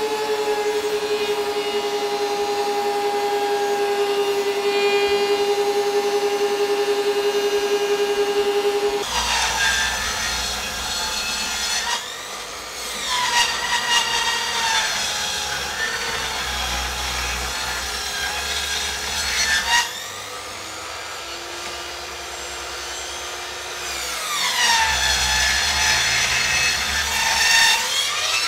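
Bench-mounted circular saw ripping timber boards into picture-framing stock, whining under load. A steady hum runs for the first nine seconds or so. The saw then makes a long cut, runs free for a few seconds with a lower hum, and makes a second cut near the end.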